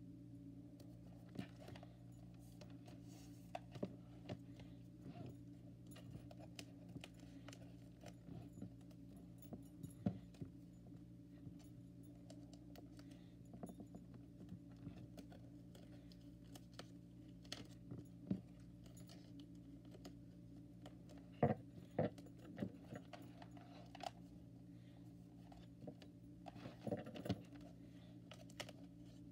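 Small paper hearts handled and pressed onto a spiral notebook's cover: soft, scattered paper taps, rustles and light clicks, a few sharper ones around ten seconds in and again a little past twenty seconds, over a steady low hum.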